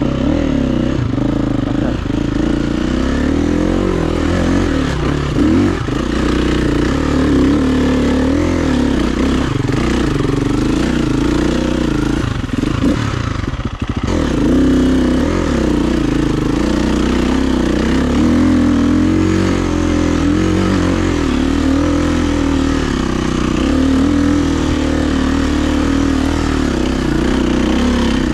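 A KTM EXC-F 350's single-cylinder four-stroke engine, fitted with an FMF exhaust tip, running under way, its revs rising and falling constantly with the throttle and dropping briefly about halfway through.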